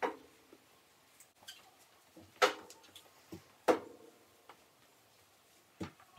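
A flat microfibre mop being worked over a marble floor while spreading wax: four sharp clacks, the loudest about two and a half and three and a half seconds in.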